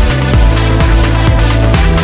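Electronic dance music with a steady, fast drum beat and heavy bass.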